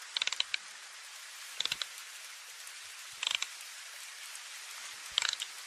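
Four short bursts of rapid mechanical clicking, about one and a half seconds apart, over a steady hiss.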